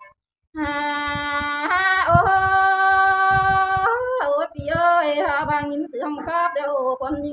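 A woman singing a slow melody. After a brief silence she holds one long note, then a second, then moves through shorter notes that slide from pitch to pitch.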